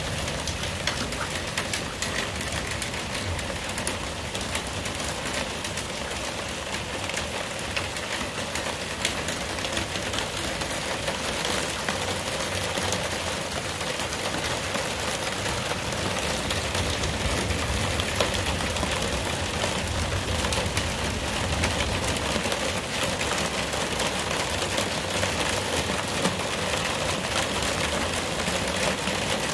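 Heavy rain falling steadily: a constant hiss with many small drop ticks, and a low rumble that swells around the middle.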